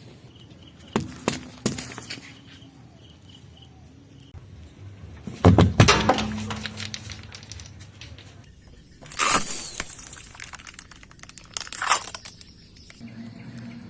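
Things cracking and breaking as they are crushed under a car's tyres: a few short crunches early on, then louder, longer crunches about five and a half seconds in, again about nine seconds in, and once more near the end.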